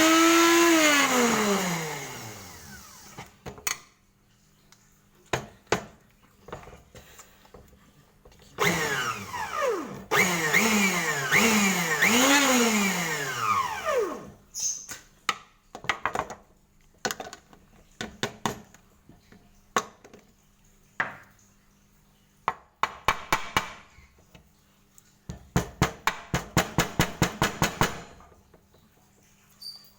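An electric power tool's motor whine rising and falling in trigger pulses, then winding down, twice. Between the two come scattered knocks and clicks. Near the end there is a fast run of clicks lasting about two and a half seconds.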